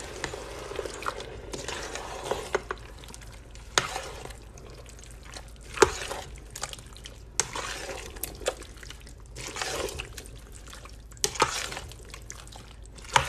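A spoon stirring thick, chunky tomato and vegetable sauce in a stainless steel pot: wet squelching and sloshing, broken by scattered sharp knocks of the spoon against the pot.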